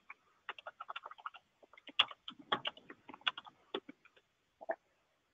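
Typing on a computer keyboard: an uneven run of key clicks for about four seconds, then a single click near the end.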